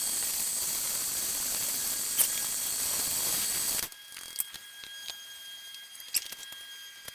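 Power drill running steadily, boring through a wooden knife-handle piece, then stopping about four seconds in; scattered light clicks and knocks follow as the piece is handled.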